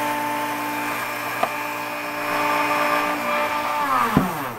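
Dremel rotary tool with a barrel sanding drum spinning at steady speed with a high whine, then switched off near the end, its pitch falling as it spins down. A light tap about a second and a half in, and a small knock just before it stops.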